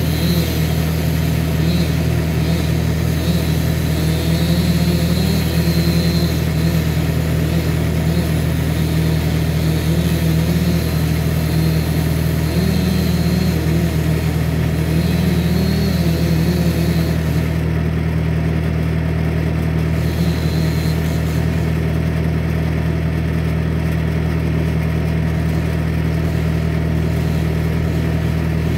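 Bobcat skid-steer loader's diesel engine idling steadily, with a fainter, wavering engine note over it that stops about two-thirds of the way through.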